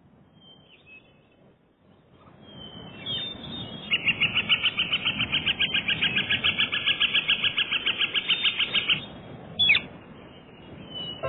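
A bird calling: a rapid, even series of high chirps, about six a second, lasting about five seconds, with a single short call shortly after.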